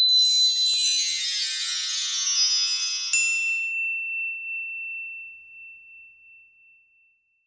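Sparkling chime sound effect for an animated logo: a bright shimmer of many high bell-like tones that thins out. About three seconds in comes a single sharp ding, whose clear ringing tone fades away over the next few seconds.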